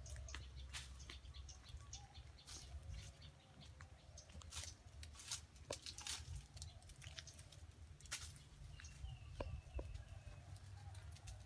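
Scattered light clicks and rustles of cats climbing through the branches and leaves of a tree, over a steady low rumble. Faint bird chirps come in near the end.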